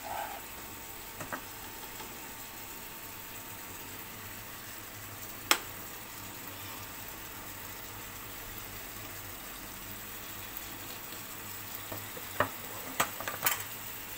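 Chicken breasts frying in butter on low heat in a nonstick grill pan, a steady gentle sizzle. A metal spoon clicks against the pan once about five seconds in and several times near the end.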